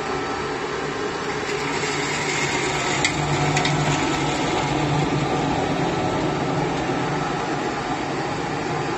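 Charcoal briquette machine running: a steady motor hum with mechanical noise, and a couple of short clicks about three seconds in.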